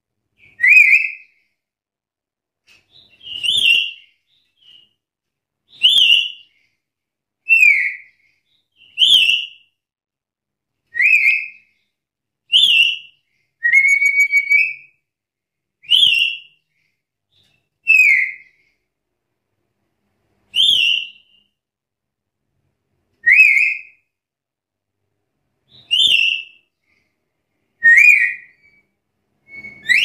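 Black-capped lory (Lorius lory) calling: loud, high whistled notes, one short note about every two seconds, some sliding up and some sliding down in pitch, with one longer drawn-out call about halfway through.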